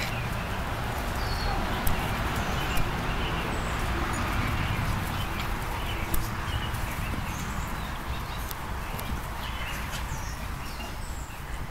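Outdoor ambience: a steady rushing hiss with scattered short, high animal chirps and squeaks, and a few sharp clicks.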